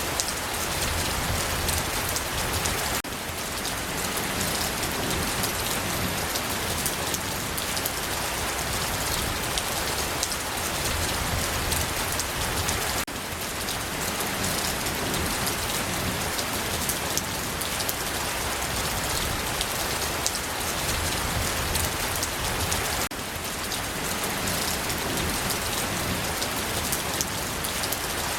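Steady rain falling, a dense even hiss of many small drops pattering. The sound dips slightly and abruptly about every ten seconds.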